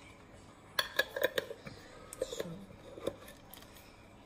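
Light clinks and taps of a small container and kitchen utensils handled over a stainless steel mixing bowl while salt is measured out: a quick cluster about a second in, then a few scattered taps.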